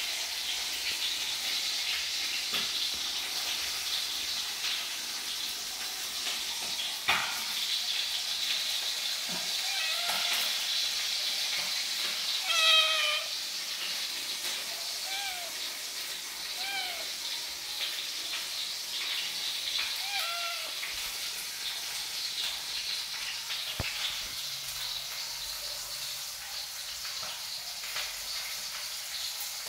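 A young kitten meowing again and again: short, high calls that rise and fall, about six of them spread through the middle stretch. A sharp knock comes about seven seconds in and another later, over a steady faint hiss.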